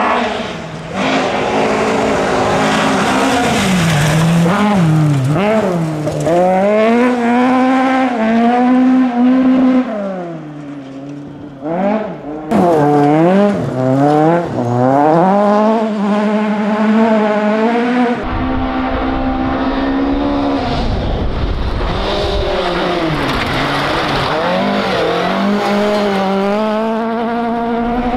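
Fiat 131 Abarth rally car's twin-cam four-cylinder engine revving hard through several separate passes, its pitch repeatedly climbing and dropping as the driver works the throttle and gears. Tyres scrabble on loose gravel as it goes by.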